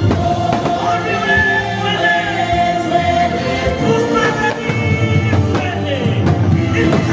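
Loud show music with singing over a full backing, with a few sharp hits cutting through.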